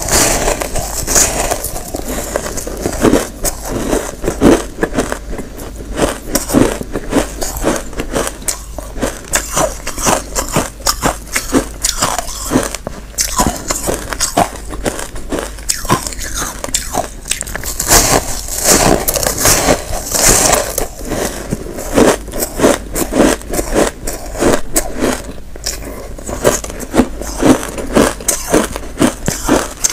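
Close-miked biting and chewing of frozen shaved-ice chunks: squeaky, crackling crunches in quick irregular succession throughout.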